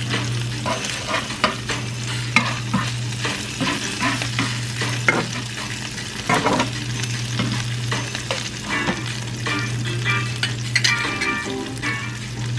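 Crab cakes sizzling in oil in a ceramic frying pan while a spatula scrapes and taps against the pan as they are turned over. A steady low hum runs underneath.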